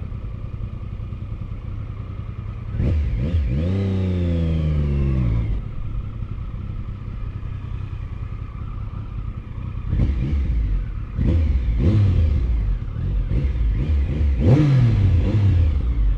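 Triumph Sprint ST 955 three-cylinder motorcycle engine at low throttle in slow traffic. About three seconds in it revs up, the pitch rising, and pulls for a couple of seconds before dropping back. From about ten seconds in come several short throttle blips, each falling away in pitch.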